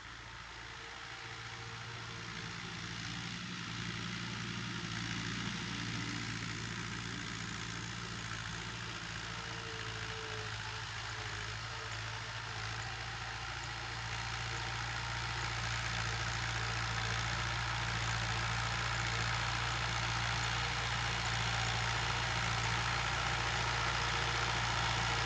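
Fiat 640 tractor's four-cylinder diesel engine running steadily as it pulls a disc harrow, growing gradually louder as the tractor draws nearer.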